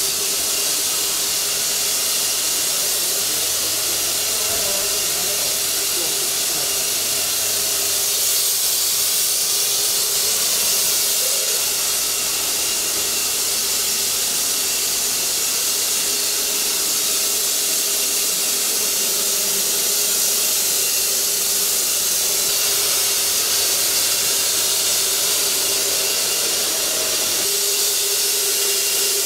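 Portable electric ULV cold fogger running, spraying disinfectant mist: a steady loud hiss with a constant motor whine underneath.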